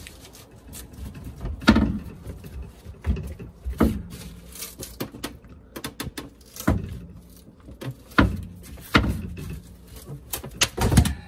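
Half-inch particle-board cabinet base being pried and yanked loose by hand: a string of irregular knocks and cracks, about one every second or two, with a few quick clusters.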